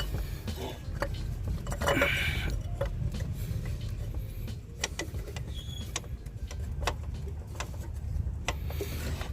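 Scattered light clicks and knocks of parts and hands working in an engine bay as a thermostat housing is fitted past hoses and wiring, with a brief scrape about two seconds in, over a steady low rumble.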